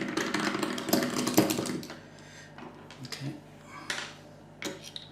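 A Torx screwdriver working screws out of the electric parking brake unit's housing: a dense rattle of rapid clicks and scraping for about two seconds, then a few separate light clicks as the screws and tool are handled.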